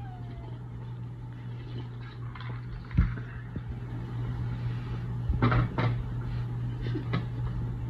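Tableware sounds at a meal: a plastic cup set down on a wooden table with a thump about three seconds in, then sharp clicks and scrapes of a fork against a plate a couple of seconds later, over a steady low hum.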